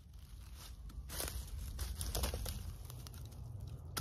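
Faint rustling and crunching in dry leaf litter and twigs, with a few light knocks.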